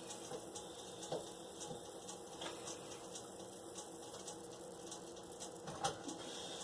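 Faint scattered clicks and handling noises from a wire cheese cutter being fiddled with, with one sharper click a little before the end.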